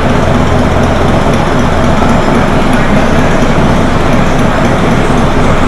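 Steady low rumble of an Intamin motorbike roller coaster train rolling slowly along its track, heard from on board.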